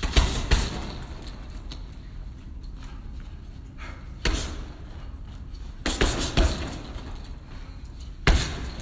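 Gloved punches landing on a heavy punching bag, coming in short clusters of one to three thuds with pauses of a second or more between them.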